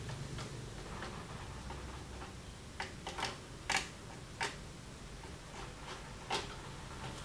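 Screwdriver clicking against motherboard screws and the sheet-steel PC case as the mainboard is unscrewed: about half a dozen sharp, irregular clicks, bunched in the middle, the loudest a little before four seconds in.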